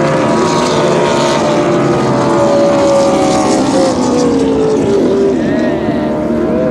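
Racing powerboat engine running at high speed across the water, a steady loud drone. Its pitch falls a little past the middle and rises again near the end.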